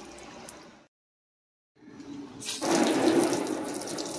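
Water spraying from a garden hose nozzle onto a car's painted panel as a steady hiss. It fades and cuts to silence about a second in, then returns and is louder for the second half.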